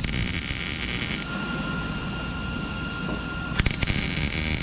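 MIG welder arc crackling as short welds are laid on a steel car hood panel. One weld runs for about a second at the start, and a second begins about three and a half seconds in with sharp snaps as the arc strikes.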